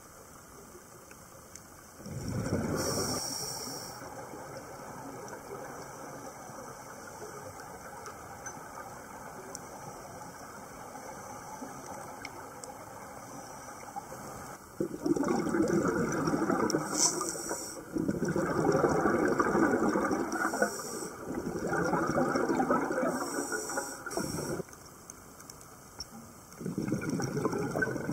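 Scuba diver's exhaled air bubbling out of the regulator underwater, in five bursts of two to three seconds each, most of them close together in the second half, over a steady faint underwater hiss.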